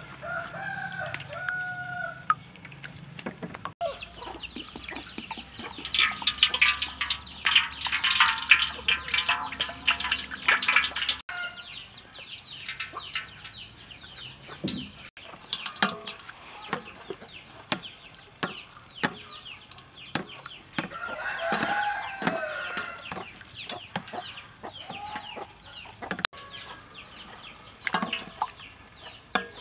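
Chickens clucking and a rooster crowing, mixed with repeated sharp clicks and taps of a wooden spoon against a steel mixing bowl.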